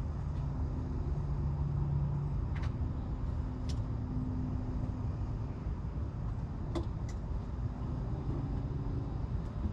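Steady low rumble of running vehicles, with faint hums that come and go and a few light clicks and taps scattered through it.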